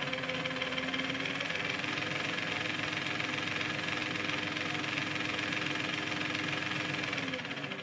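RC crawler's electric motor and geared drivetrain running at speed, with the wheels spinning free in the air, making a steady whine and gear noise. The front axle is geared for overdrive. The pitch steps up a little about two seconds in, holds steady, and starts winding down as the throttle is let off near the end.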